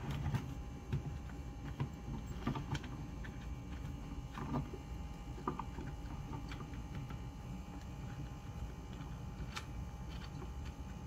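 Small scattered clicks and scrapes of metal parts being handled as the blade holder assembly is worked off the front of a Rockwell Model 60 jigsaw, with a steady low hum underneath.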